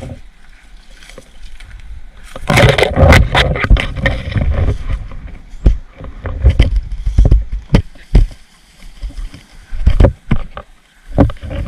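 Close rustling, scraping and irregular knocking as someone pushes through undergrowth right against the microphone, with a low rumble of handling noise.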